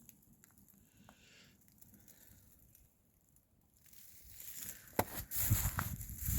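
Quiet at first, then footsteps crunching and rustling through dry grass and brush, growing louder over the last two seconds, with a sharp click about five seconds in.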